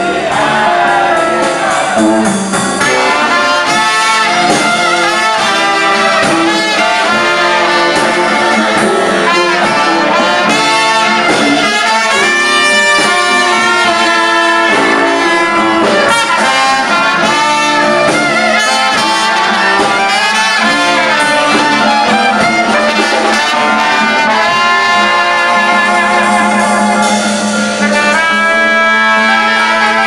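Street band playing jazz on brass: trombone, trumpet and saxophone over a steady bass line, with a low note held strongly near the end.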